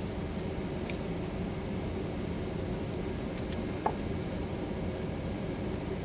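Steady low background rumble, with a few faint clicks.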